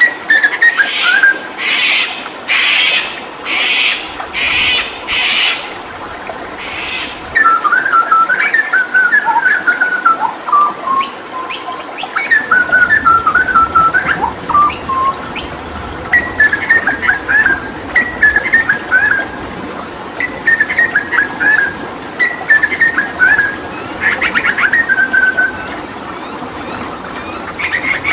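Hooded butcherbird calling and singing. It gives about six harsh rasping notes in the first few seconds, then whistled phrases that glide downward, with runs of quick chattering notes. A steady background of running water plays underneath.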